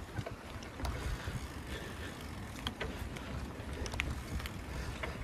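Bicycle rolling along a rough road, heard through a phone mounted on the bike: a steady low rumble of wind and tyres with scattered small clicks and rattles.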